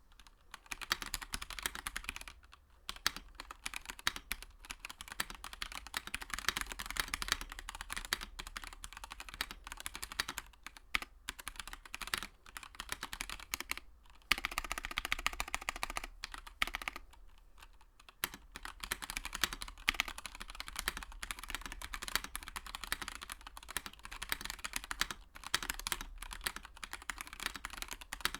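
Typing on a Monstargears Ninja 87 tenkeyless mechanical keyboard with yellow switches, PBT keycaps, an aluminium plate and an acrylic case: a steady run of keystroke clacks, broken by a few short pauses.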